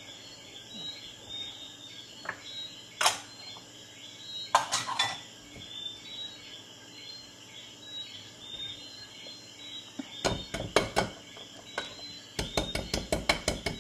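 Wire whisk stirring thick carrot-cake batter in a glass bowl, the wires clinking against the bowl. A few single knocks come first, then a short run of taps, and near the end a fast, even run of about seven taps a second.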